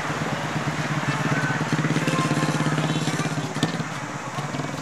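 A small engine running with a fast, even pulse, a little louder through the middle and easing off near the end.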